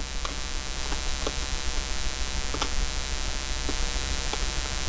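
Steady electrical hum and buzz, with a few faint clicks scattered through it.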